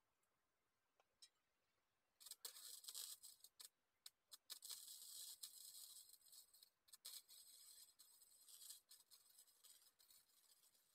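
Faint crackling hiss of an electric welding arc on steel. It starts about two seconds in, breaks off for a moment and restarts, then runs on with short gaps.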